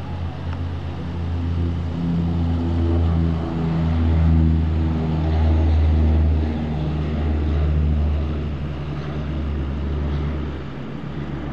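De Havilland Canada Dash 8 (C-147) twin-turboprop climbing out after takeoff: a steady low propeller drone with a stack of higher tones above it, growing louder over the first few seconds and easing a little near the end.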